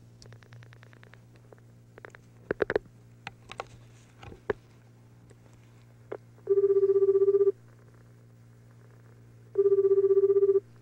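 Telephone ringback tone: two warbling one-second tones at a steady low pitch, about two seconds apart, the sign that the called line is ringing and not yet answered. Before them come a few scattered clicks.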